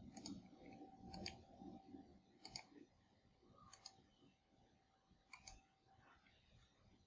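Near silence broken by faint, sharp clicks, most of them in quick pairs, about five times, with a faint steady hum underneath.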